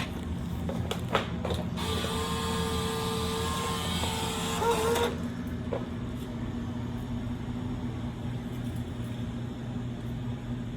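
A few sharp clicks, then a small motor in the snack vending machine whirs with a steady pitch for about three seconds and cuts off suddenly. A steady low hum runs underneath.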